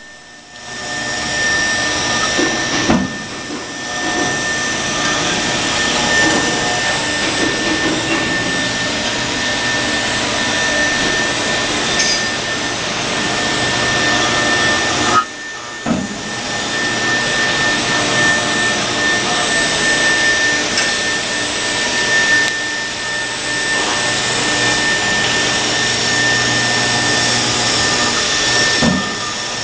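5-axis CNC router's HSD spindle running at a steady high whine while its cutter carves a 3D head, with a continuous hiss of cutting. The sound drops out briefly about 15 seconds in.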